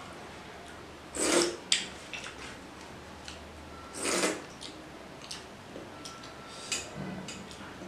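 Close-up mouth sounds of someone eating curry and rice by hand: two loud slurps, about a second and about four seconds in, with small lip smacks and clicks between.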